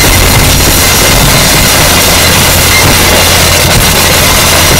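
Harsh noise music: a loud, unbroken wall of distorted noise over a steady low drone.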